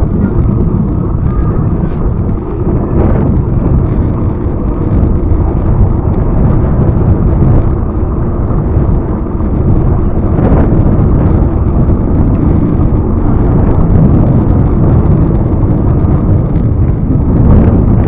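Wind buffeting the microphone of a camera riding on a moving bicycle: a loud, steady low rumble.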